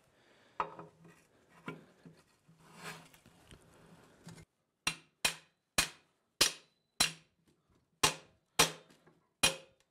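Hammer striking the steel pivot pin of a two-post car lift's swing arm: about eight sharp metallic blows a little over half a second apart, each with a brief ring, starting about halfway in. Before them, faint clinks of the steel arm being handled.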